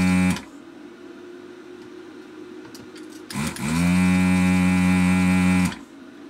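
Desoldering station's vacuum pump motor humming as the gun's trigger is pulled to suck molten solder off an IC's legs. The first run cuts off just after the start. About three seconds in the pump spins up again, runs steadily for a couple of seconds and stops suddenly.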